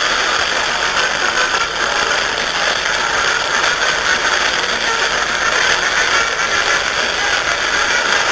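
Radio reception static from a Siete Mares receiver: a steady hiss with a crackling, rattly texture, no station voice coming through.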